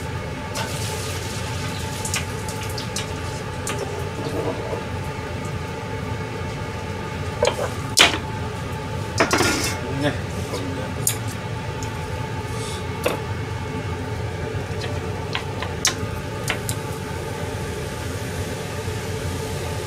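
Metal cookware clattering on a gas stove: a few sharp knocks and clinks of a pan and utensils, loudest around the middle, over a steady background hum.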